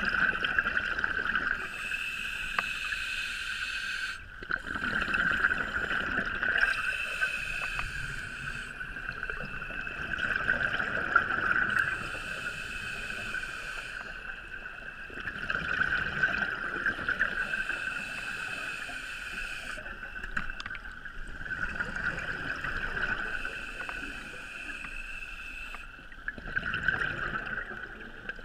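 A scuba diver breathing through a regulator underwater, heard through a GoPro's waterproof housing. The exhaled bubbles come in a gurgling rumble about every five seconds, six breaths in all, over a steady high-pitched hum.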